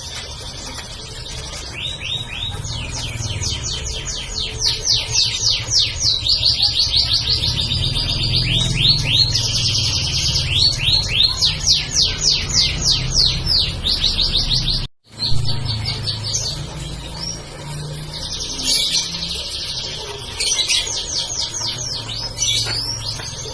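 Domestic canary singing a long, fast song of rapid repeated trills and rolls over a low steady hum. The sound cuts out for an instant about fifteen seconds in, then the song resumes.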